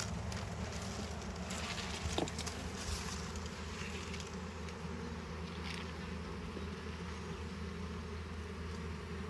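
Honeybees of a hive colony buzzing steadily, with a couple of brief ticks.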